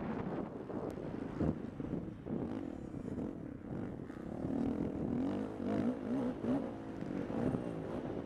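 450cc four-stroke dirt bike engine under racing throttle, its pitch rising and falling repeatedly as the rider accelerates and shifts.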